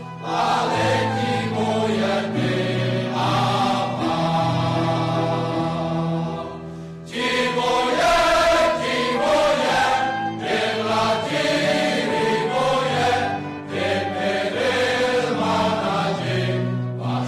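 Male choir singing a hymn in several parts, with sustained chords. The phrase breaks off briefly about seven seconds in, then the choir comes back in louder.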